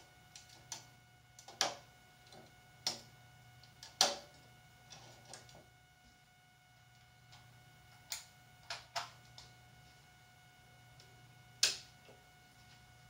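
Power switches clicking as a row of fluorescent light fittings and an LED batten are turned off one after another: about eight sharp clicks in irregular groups, some in quick pairs, the loudest about four seconds in.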